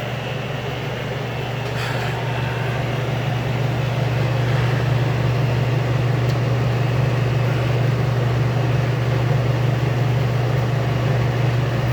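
Old window air conditioners running: a steady low compressor hum under fan noise. There is a faint click about two seconds in, and the sound grows a little louder over the next few seconds as the second unit comes on.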